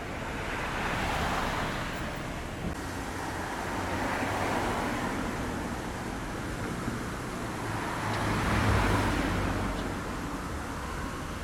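Outdoor background noise of road traffic: a steady hiss that swells and fades three times, as passing cars do.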